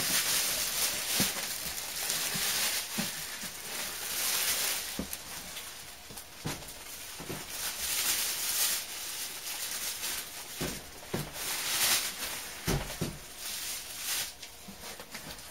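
Foam packing and cardboard being handled: rustling and scraping in several swells, with scattered light knocks.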